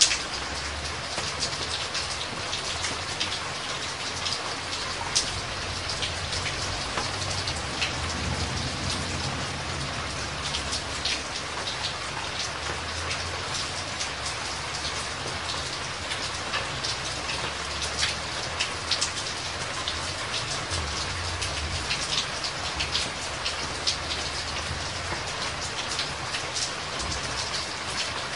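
Steady rush of water with a dense patter of small drops and splashes over a low rumble.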